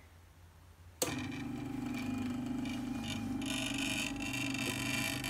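Stepper motors from salvaged CD-ROM drives driving the printer's axes: a steady buzzing hum with a higher whine, starting suddenly about a second in. The motors are moving again on newly fitted stepper drivers.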